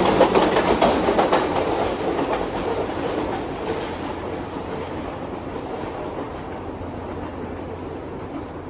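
Model freight train of refrigerator boxcars rolling along the track, its wheels clicking rapidly over the rail joints, the sound growing gradually fainter.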